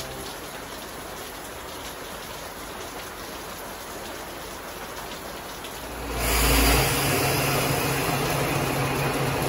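Steady rain falling on the platform and tracks. About six seconds in, a Wakasa Railway diesel railcar's engine sets in abruptly, with a brief low rumble, then idles steadily at the platform, the rain still heard under it.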